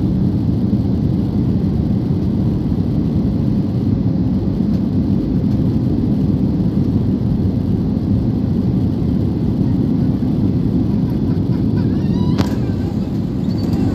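Steady cabin noise inside an Air India jet airliner coming in to land: an even, deep rumble of engines and rushing air. A short sharp knock sounds near the end.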